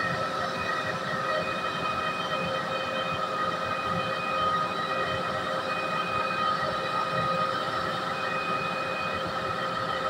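Concrete pump truck's engine and hydraulic system running steadily while the boom folds, a continuous drone with several high, steady whining tones over it.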